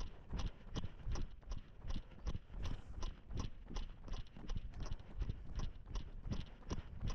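A runner's footsteps striking the ground at a steady running pace, about three steps a second.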